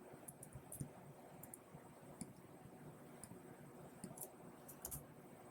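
Faint, irregular clicks of computer keyboard keys being typed, a dozen or so scattered keystrokes.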